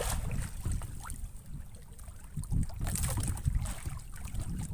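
Wind rumbling on the microphone and sea water lapping around a small outrigger fishing boat, with scattered rustles and clicks as a gill net is hauled by hand over the gunwale, busiest about three seconds in.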